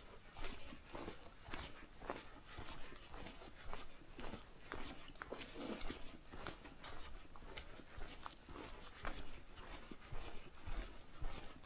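Footsteps of a person walking on a forest trail, an uneven run of soft crunching steps, about one to two a second.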